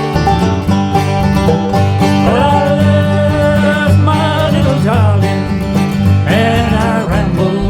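Bluegrass-style country music with banjo and guitar. A sliding lead melody comes in about two seconds in.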